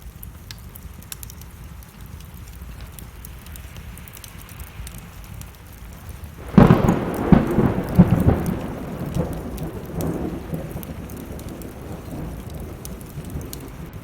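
Wood fire crackling in a fireplace over steady rain, then a sudden thunderclap about halfway through that rumbles on in a few more peaks and fades over several seconds.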